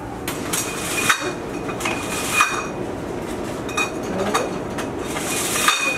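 Green glass soju bottles clinking against each other and the shelf as they are taken out of a drinks fridge: five or six sharp clinks with a short ringing tone, spread across the few seconds.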